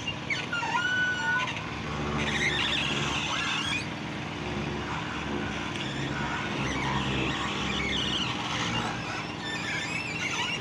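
A small engine hums steadily throughout, under scattered high squeaks and creaks from the wooden frame and net roller of a lift-net fishing platform as the net is worked.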